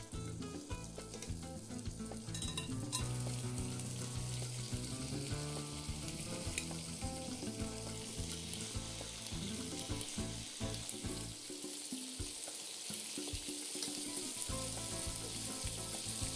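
Chicken pieces sizzling as they fry in hot oil in a frying pan. The hiss of the frying grows louder about three seconds in, and a few light clicks sound over it.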